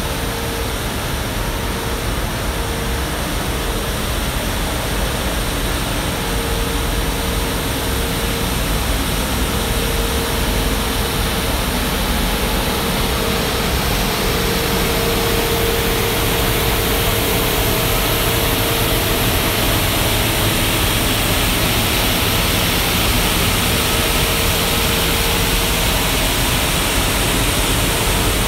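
Johnston VT652 road sweeper working: a steady rushing noise of its engine and suction over a low rumble, with a hum that wavers in and out, growing gradually louder.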